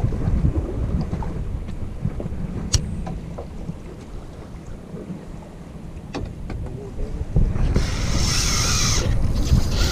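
Wind buffeting the microphone on a small fishing boat at sea, with a steady low rumble and a few light clicks. Near the end comes a louder hiss lasting about a second.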